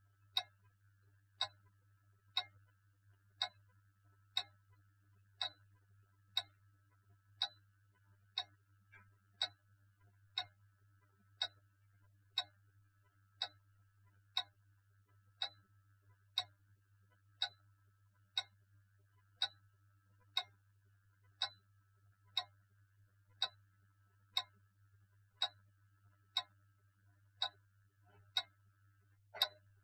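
Clock ticking steadily, about one tick a second, over a faint low hum.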